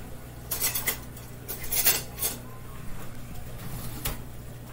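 Kitchen utensils and cookware clinking and clattering as they are handled, in several short bursts with the loudest around two seconds in. A low, steady hum runs underneath.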